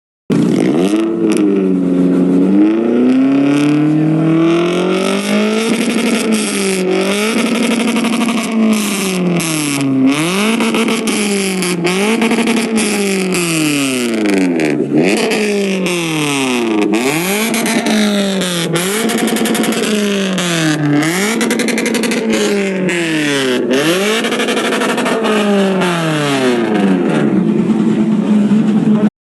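A vehicle engine revving hard over and over. Its pitch climbs, then drops sharply and climbs again, about every one and a half seconds. The sound cuts out for a moment at the very start and again near the end.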